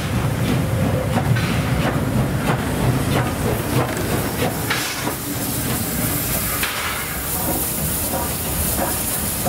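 NSW 36 class steam locomotive 3642 rolling slowly past at close range: a steady low rumble of the engine and its wheels with scattered clicks, and steam hissing in short bursts about halfway through and again later.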